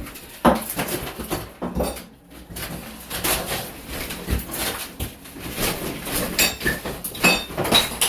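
Demolition work on a wall: irregular knocks, cracks and scraping as wall material is pried and broken off, with a few short high squeaks near the end.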